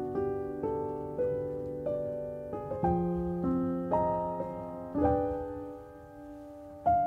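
Background music: a gentle solo piano piece, with notes struck every half second or so and left to fade.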